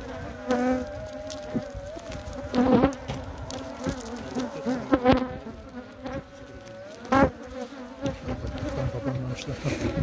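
Honeybees buzzing in flight around their hives: a continuous wavering hum, with a few louder swells of changing pitch as individual bees fly close past.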